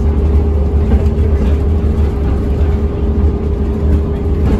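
Volvo B10TL Super Olympian double-decker bus under way, heard from on board: a steady, loud low engine drone with a constant whine above it.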